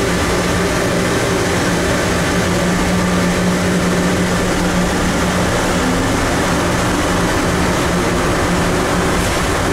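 Rubber-tyred automated airport people mover running at speed through its tunnel, heard from inside the car: a steady drone of tyres and running gear with a steady low hum underneath.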